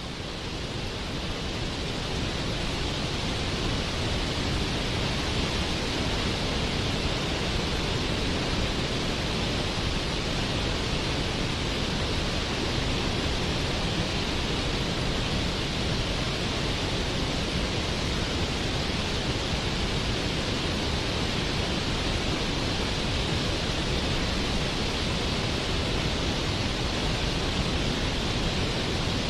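Waterfall: a steady, unbroken rush of falling water, fading up over the first few seconds and then holding even.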